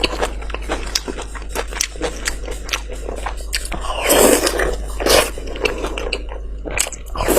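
Close-miked chewing and biting of fatty meat: a steady run of short wet mouth clicks, with louder bites about four and five seconds in.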